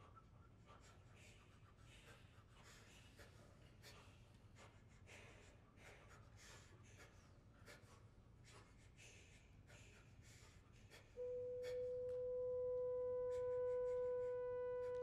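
Faint rustles and small clicks in a quiet hall, then about eleven seconds in a French horn comes in with one long, steady held note.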